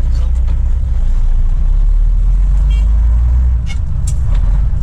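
Truck engine running with a steady low rumble that shifts about three and a half seconds in, joined by a couple of short sharp sounds.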